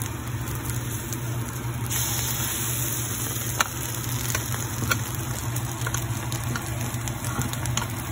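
Eggs with green onion sizzling in a frying pan over a steady low hum, with a couple of sharp clicks about halfway through.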